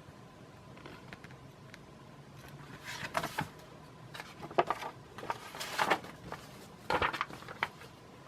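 Paper catalog pages being handled and turned, giving several brief rustles and scrapes, over a faint steady hum.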